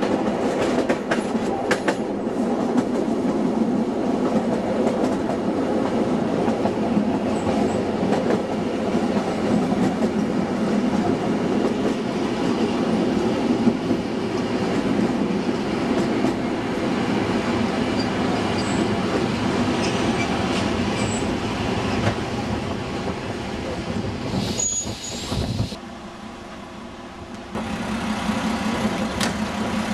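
Narrow-gauge train running behind a class 705.9 diesel locomotive: a steady drone of engine and wheels on the rails, with a few sharp clicks from the wheels in the first couple of seconds. About 25 seconds in, the sound drops away to a quieter level for a couple of seconds, then a steady running noise returns.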